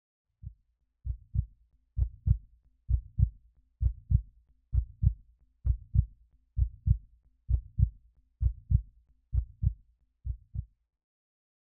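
Heartbeat sound effect: paired low thumps in a steady lub-dub rhythm, about one beat every 0.9 seconds. It starts with a single soft thump, grows louder, and stops shortly before the end.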